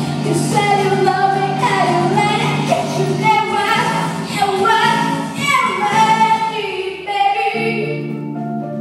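A female voice singing a song into a microphone, amplified over steady instrumental accompaniment. The sung line ends near the end, leaving the accompaniment playing alone.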